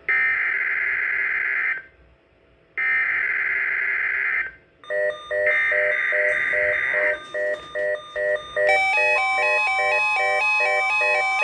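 NOAA Weather Radio emergency alert: three harsh buzzing SAME data bursts of about two seconds each, a second apart. Quick electronic alarm beeps join in at about five seconds. Near the end they give way to a busy run of stepping beep tones over a steady tone.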